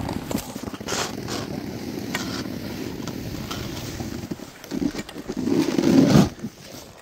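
Skis and ski boots scraping and crunching on packed snow as a fallen skier struggles back up, with a louder, longer scrape about five to six seconds in.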